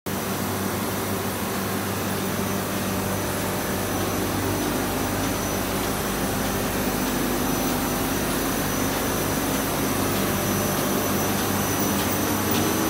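Great Wall 1270 CTR paper sheeter running: a steady machine hum with several low tones and a thin high whine over it, as the paper web runs off the reels through the rollers. Faint regular ticks come in near the end.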